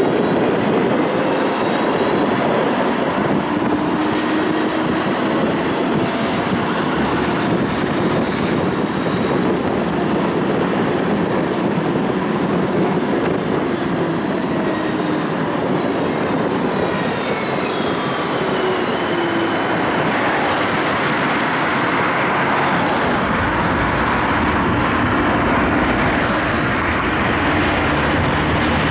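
Tram running along its rails, heard from inside the car: a steady rolling noise with faint whining tones that glide slowly up and down in pitch as the tram speeds up and slows. A deeper rumble joins in near the end.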